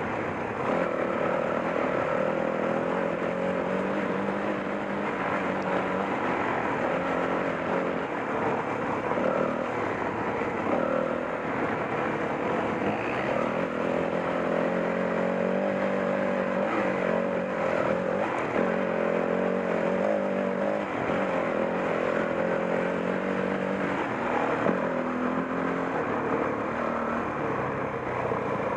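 Off-road motorcycle engine running as the bike is ridden, its pitch rising and falling again and again with throttle and gear changes.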